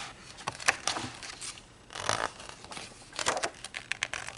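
Pages of a picture book being handled and turned: irregular paper rustling and crinkling in several short bursts.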